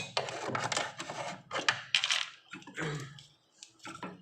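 A flat-head screwdriver prying a refrigerator compressor's relay and overload off its terminal pins: a sharp click, then about two seconds of scraping and rattling, with a few lighter clicks near the end.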